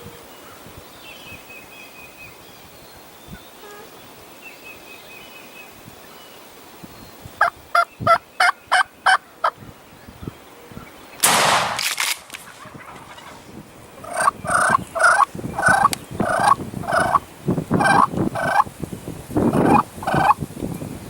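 Wild turkey yelping: two series of evenly spaced, rising-and-falling calls, about seven notes and then about ten. Between them comes a brief loud rush of wind-like noise, with faint songbird chirps before the calling starts.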